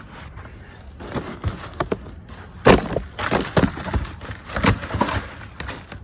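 A series of irregular knocks and thuds of things being handled and set down, several a second, the loudest about two and a half seconds in.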